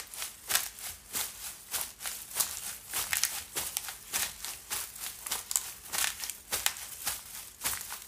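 Footsteps crunching through dry fallen leaves: a steady walking run of crisp, crackling steps, several a second.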